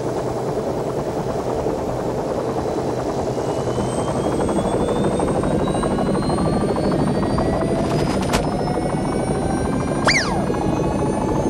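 Helicopter running close by, a steady churning noise with an engine whine that slowly rises in pitch. A sharp click comes about eight seconds in, and a short high squeal near the end.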